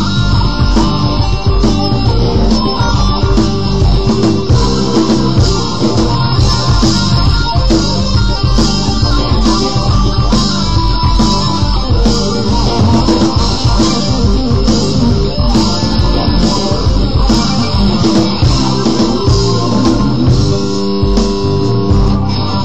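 Electric guitar, a Japanese-made Fender Squier Series Stratocaster, played along with a rock backing track of bass guitar and drums keeping a steady beat.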